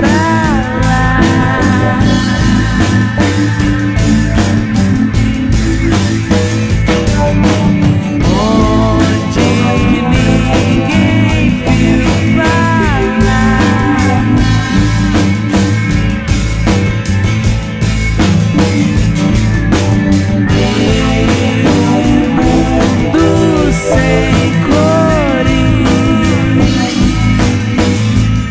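Psychedelic rock band recording: drum kit, bass and electric guitar playing steadily, with a lead line that bends up and down in pitch.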